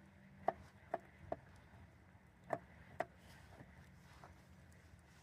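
Knife chopping on a cutting board: five sharp knocks, three in quick succession and then two more after a short pause.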